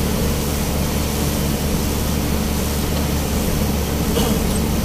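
Steady engine and tyre noise heard inside the cab of a truck driving on a wet road: a constant low hum under an even hiss.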